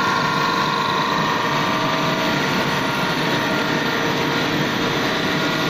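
Textured soy protein extrusion line running: steady machine noise with a continuous whine.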